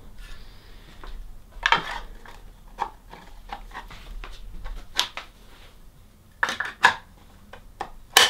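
Hard plastic and metal chair parts being handled during assembly. They make a run of irregular clicks and knocks, with a few sharper clacks near the end.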